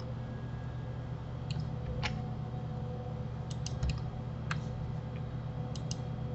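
Scattered clicks of a computer keyboard and mouse, one or two at a time with a quick run of about four clicks in the middle, over a steady low hum.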